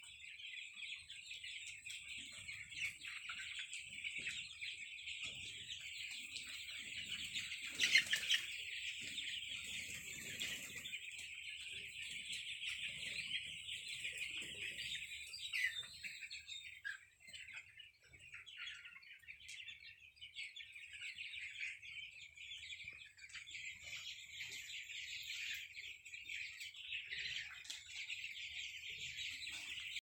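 A large flock of young chicks peeping continuously, a dense, high chorus of overlapping cheeps. A single sharp knock stands out about eight seconds in.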